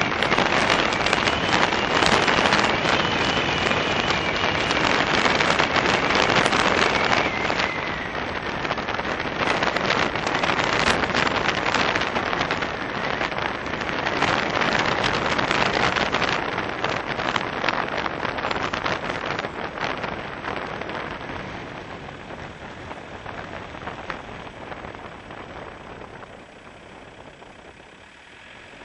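Car driving, with steady road and wind noise that crackles on the microphone. It quietens over the last ten seconds or so as the car slows.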